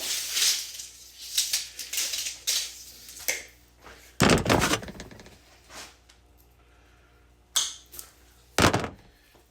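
Handling noise from antenna wire being pulled and measured out: crackly rustling with small clicks at first, then two loud knocks, one about four seconds in and one near the end, with a lighter knock between them.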